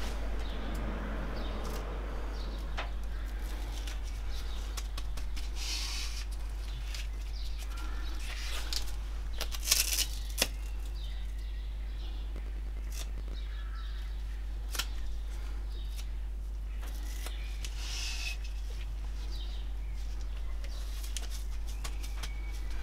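Gloved hands pressing and wrapping a self-adhesive foam strip around the edges of a new aluminium heater matrix: scattered rustling, crinkling and light clicks, with a few louder rustles about six, ten and eighteen seconds in, over a steady low hum.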